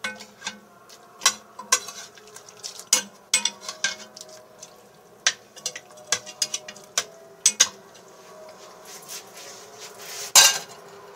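Metal spoon clinking and scraping against an enamelled pot while stirring and basting a chicken braise in sauce. The sharp clinks come every second or so and thin out after about eight seconds, with one louder knock near the end.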